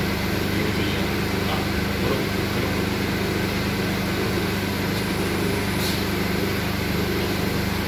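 Steady hum of running machinery: a low, even drone with a hiss over it.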